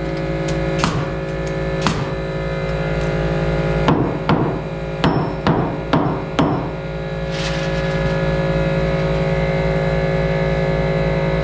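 Hammer blows driving nails into a slightly bowed wooden board to draw it flat and tight, about nine strikes with a quick run of them in the middle. Background music plays throughout.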